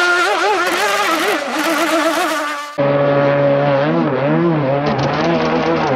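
RC hydroplane's motor running flat out across the water, a high buzz whose pitch rises and falls. A little under three seconds in it cuts to another run with a lower-pitched motor.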